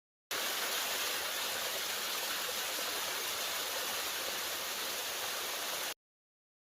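Steady rush of water from a waterfall or fast-flowing creek, starting abruptly just after the start and cutting off abruptly near the end.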